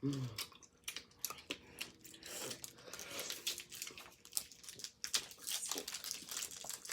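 Hi-Chew candy wrappers crinkling and tearing in irregular crackles, mixed with close-up chewing of the hard, sticky candies.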